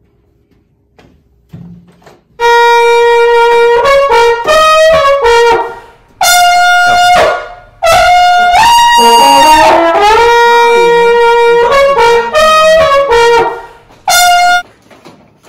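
Music: a loud solo brass melody played in several phrases with short pauses between them, with a brief last note near the end.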